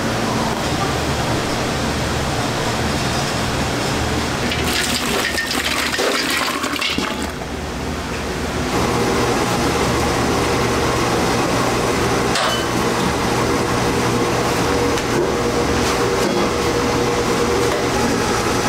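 A rushing, water-like pour between about four and seven seconds in. Then, from about nine seconds, a dough mixer runs at a steady drone, its dough hook kneading pizza dough in a steel bowl.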